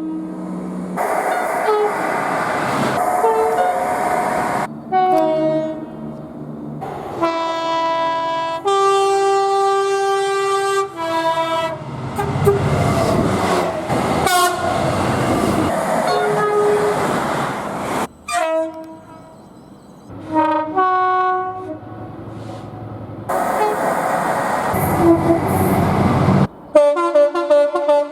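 A rapid run of British train horns cut one after another, each clip a blast or two of a locomotive or multiple-unit horn, several stepping between a high and a low note. Between and under the blasts comes the rumble and wheel noise of trains passing.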